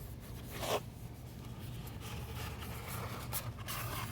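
Rolled paper poster being worked and slid out of its tube: scattered rustling and scraping of paper, with louder scrapes about two-thirds of a second in and again near three and a half seconds.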